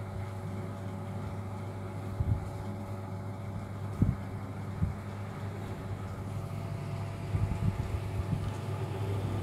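A steady low hum with several faint steady tones above it, like a running fan or electrical appliance, broken by a few short soft low thumps.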